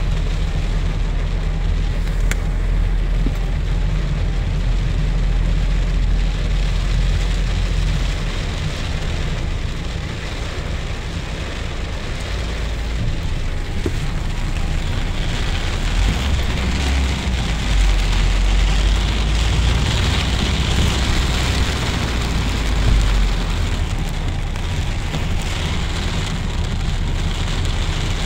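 Heavy rain on a moving car, heard inside the cabin: a steady hiss of rain and wet tyres over the low rumble of the car on a waterlogged road. The hiss grows louder for several seconds past the middle.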